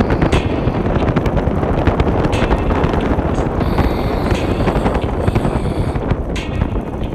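Wind buffeting the microphone of a moving motor scooter, a steady low rush with crackling gusts, the scooter's motor and road noise beneath it.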